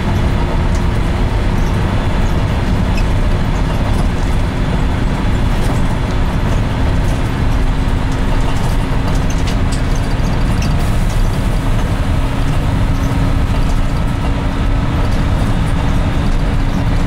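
Steady cabin noise inside a moving bus: engine and road rumble with a faint constant hum.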